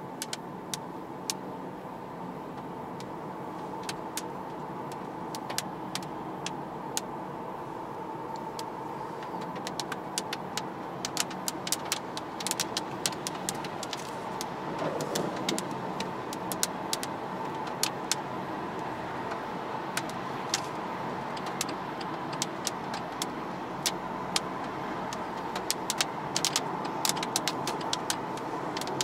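Interior sound of a BMW 118i (F20) at motorway speed: its 1.5-litre three-cylinder turbo engine, with steady tyre and wind noise and a steady hum, slowly getting louder. Many short sharp ticks cut through, growing more frequent.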